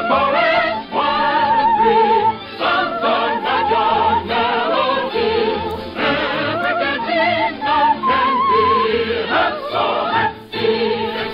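Operetta music: operatic voices singing with strong vibrato, joined by a choir.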